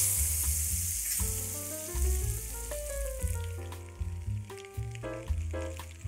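Butter sizzling in a hot metal saucepan: a loud hiss as the butter hits the pan, dying down over the next few seconds as it melts and foams.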